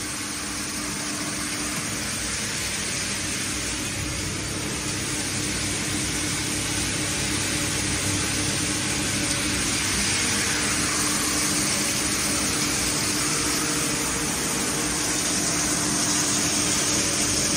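A shredding machine running steadily while it discharges shredded flakes: an even mechanical whir and hiss with a faint steady hum underneath, growing slightly louder over the first ten seconds.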